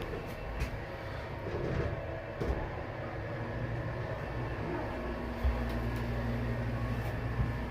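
Subway station elevator cab running upward: a steady low rumble and hum, with a thump about five and a half seconds in and a lighter knock near the end.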